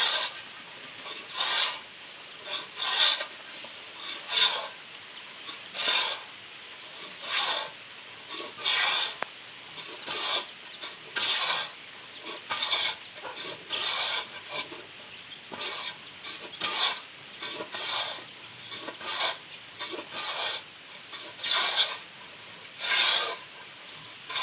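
Manual wooden hand plane shaving a board, one stroke about every second and a half in a steady rhythm, each a short rasping scrape of the blade across the wood.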